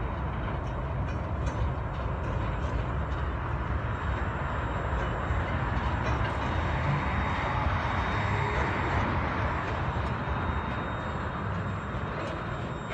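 Freight train wagons rolling steadily along the track, a continuous even rolling noise of wheels on rails.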